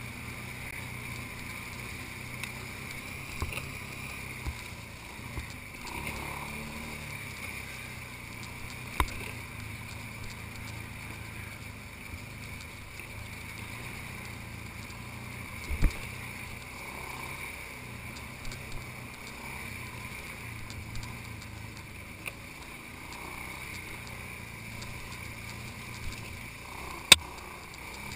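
ATV engine running steadily, its low hum stepping up and down with throttle, and a few sharp knocks as the machine jolts over the trail, the loudest near the end.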